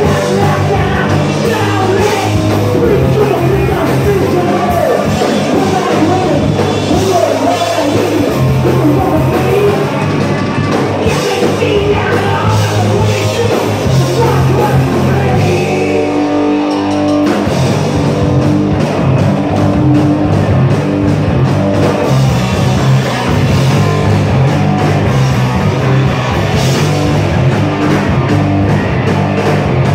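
Live punk rock band playing loud: electric guitar, bass guitar and drums with a shouted lead vocal. About halfway through there is a short break where one held note rings, then the full band comes back in.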